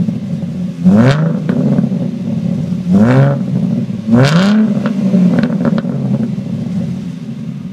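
2013 Roush RS Mustang's 3.7-litre V6 through Pypes Pype Bomb axle-back mufflers, blipped from idle three times, about a second in, at three seconds and just after four. Each rev climbs and falls back in about half a second. It then settles to a steady idle that drops off a little near the end.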